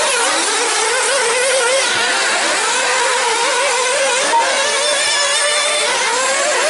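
Several 1/8-scale nitro off-road buggies racing, their small two-stroke glow-fuel engines buzzing at high revs, rising and falling in pitch as they accelerate and brake, overlapping into one steady wail.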